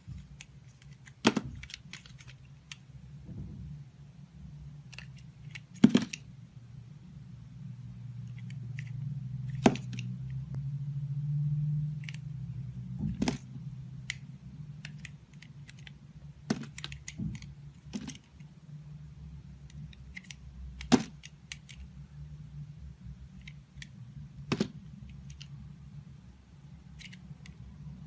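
A knife cutting a bar of soap, with crisp snaps as the blade cracks through and pieces break off, about every three or four seconds, and light ticks and scrapes in between. A steady low hum runs underneath.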